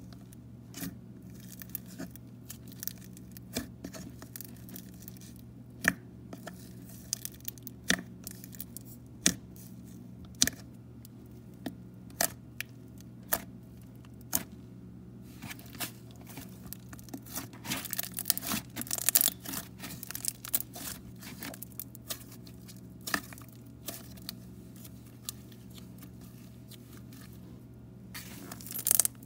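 Thick cream-coloured slime being poked, pressed and kneaded by hand, giving irregular sharp clicks and crackly pops as air pockets burst, busiest a little past the middle.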